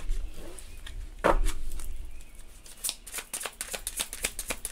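A deck of tarot cards shuffled by hand, cards slapping and clicking against each other in quick irregular strokes, with one louder thump a little over a second in.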